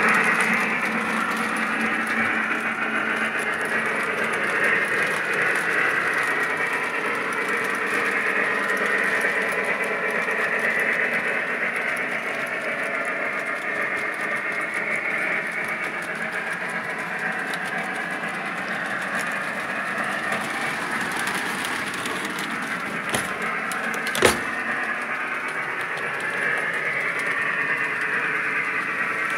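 O gauge model trains running on the layout's three-rail track, a steady rumbling hum, with one sharp click near the end.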